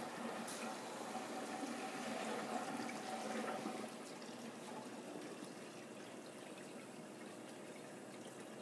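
Liquid running and trickling in the tanks of a dip-and-dunk film processor, over a faint steady hum. It gets quieter about four seconds in.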